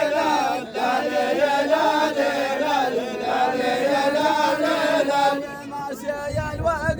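A group of voices chanting a melody in unison with long, gliding held notes. A low rumbling noise comes in beneath them near the end.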